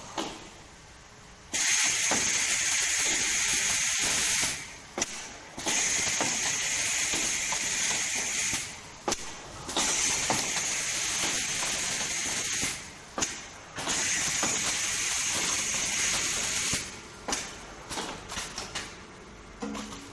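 Automatic stretch-film soap wrapping machine hissing in long blasts of about three seconds each, four times with short pauses between, then several quick short bursts near the end.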